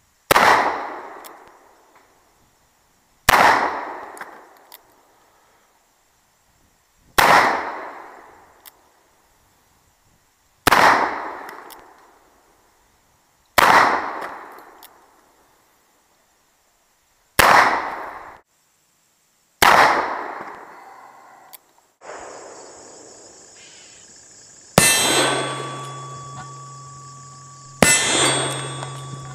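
A Remington cartridge-conversion revolver (Uberti replica) firing black-powder .44-40 cartridges in a slow string of single shots. The shots come about three to four seconds apart, each a sharp crack with a ringing tail.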